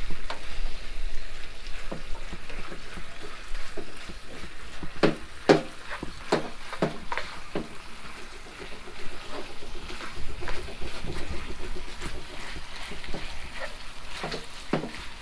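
Pork adobo frying in a pan as its sauce cooks down, with a ladle stirring through the meat and knocking against the pan a number of times, most often about five to seven seconds in and again near the end.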